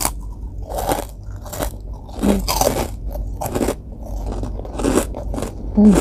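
Close-up chewing of crispy fried food with a crumb coating: sharp crunches about once a second as the crust is bitten and chewed.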